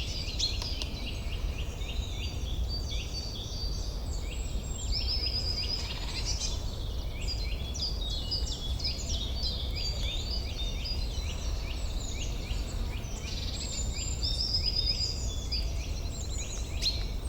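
A dawn-chorus-like mix of many songbirds singing at once: dense, overlapping quick chirps and short falling whistles, over a steady low rumble.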